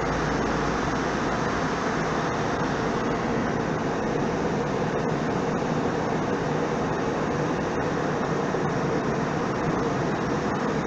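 Steady drone of an airliner cabin in flight: engine and rushing-air noise heard from inside the plane, even and unchanging throughout.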